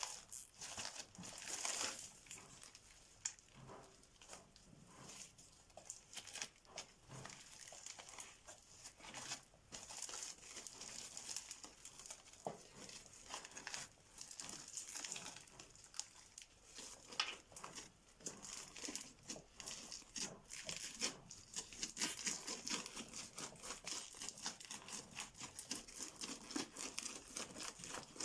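Crunchy, sticky slime being squeezed and stretched by hand, giving a continuous run of dense, irregular crackles and sharp clicks.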